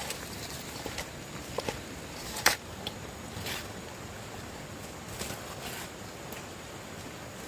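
Steady rush of stream water in flood, with scattered light knocks and one sharp click about two and a half seconds in.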